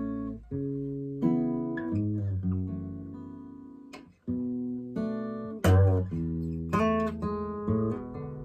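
Gibson J-45 steel-string acoustic guitar played solo, picked notes and chords ringing out and decaying. The sound almost dies away about four seconds in, then a loud strummed chord comes in, followed by more chords.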